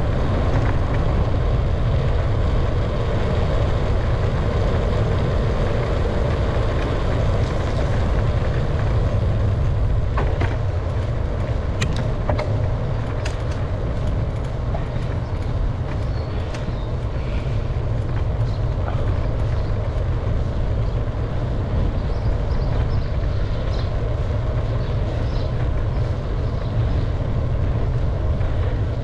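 Steady rumble of wind and road noise from a moving bicycle, picked up on the bike-mounted camera's microphone, with a few sharp clicks around the middle.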